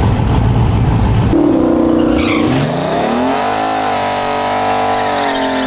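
Chevette's 4.3-litre V6 drag engine running low, then revving up about two seconds in and held high while a steady hiss of spinning rear tyres runs under it: a burnout before a drag run.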